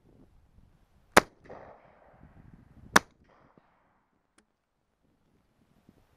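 Two loud shotgun shots fired about two seconds apart, each a sharp crack with a short rumble of echo after it.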